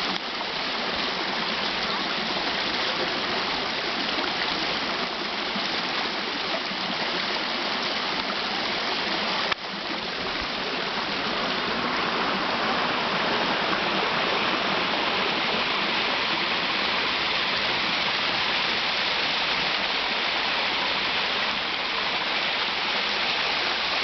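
Small waterfall and rocky stream rushing steadily, an even hiss of water. A single brief click about ten seconds in, after which the water is slightly louder.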